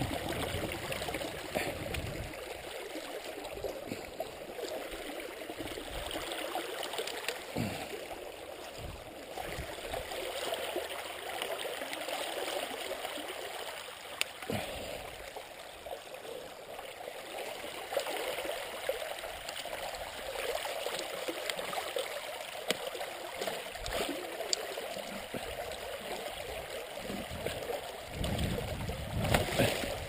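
Shallow creek water running and gurgling over sticks and grass tufts at a beaver dam, a steady rushing trickle. A few dull low bumps come through, the loudest near the end.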